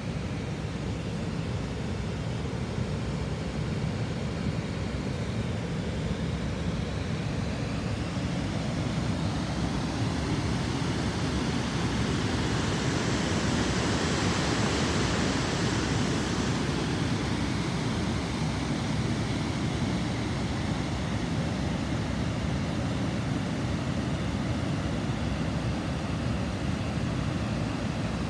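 Steady rush of water pouring over a river weir. It grows louder and more hissing for a few seconds about halfway through.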